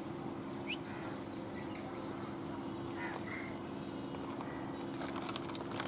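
Stationary EMU electric local train humming steadily at the platform. A few short high calls come about a second in and again around three seconds, and a run of sharp clicks sounds near the end.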